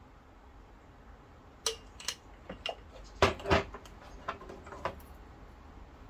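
Kitchenware clinking and knocking: about ten sharp clinks over some three seconds, the loudest two in the middle.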